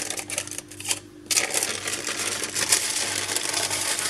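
Sheet of baking paper crinkling and rustling as it is peeled off the back of a freshly baked sponge cake, with a short pause about a second in.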